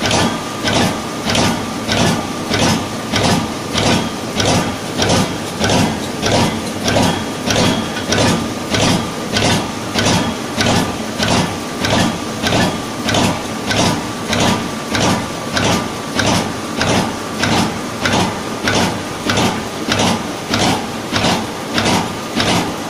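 Mineral jigging machine running, its drive pulsing the water through the mineral bed in an even rhythm of about three strokes every two seconds, over a steady whine.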